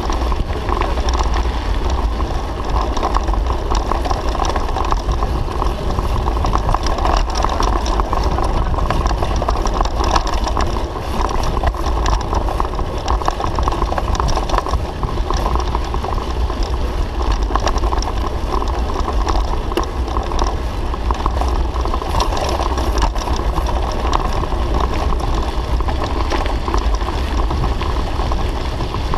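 Mountain bike riding over a gravel road: steady wind rumble on the bike-mounted microphone, with the tyres crunching and many small rattles and ticks from the gravel.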